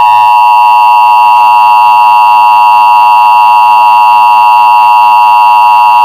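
Emergency Alert System attention signal: the loud, steady two-tone (853 and 960 Hz) alarm tone that comes before an emergency message.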